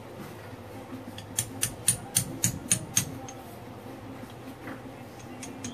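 Ball-peen hammer tapping the metal CV joint housing of a driveshaft to seat it. A quick run of about seven sharp metallic taps, three or four a second, comes about a second and a half in, and a couple of lighter taps follow near the end.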